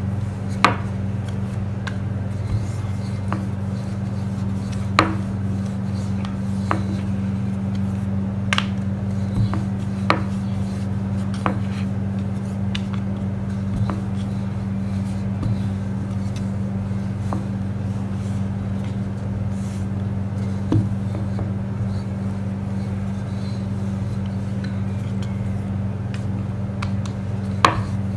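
Wooden rolling pin rolling out a small piece of dough on a wooden board, with about eight sharp knocks as the pin taps the board. A steady low hum runs underneath.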